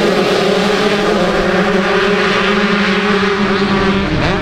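Motocross bike engine running hard at a steady high pitch, with a change in pitch near the end as the throttle or gear changes.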